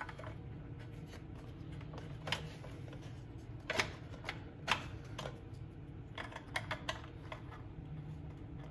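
Scattered sharp clicks and taps of small parts being handled and fitted on a snowblower during reassembly, with a quick run of them about two-thirds of the way through. A steady low hum sits underneath.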